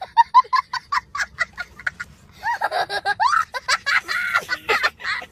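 A young boy laughing hard: a quick run of short, high-pitched 'ha' bursts for about two seconds, then longer laughing cries that rise and fall in pitch.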